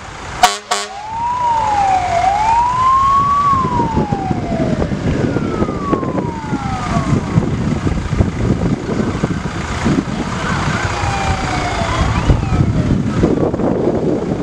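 Fire engine sirens wailing, rising and falling slowly, with several sounding at once, over the low rumble of the trucks' engines. Two short, sharp bursts come right at the start.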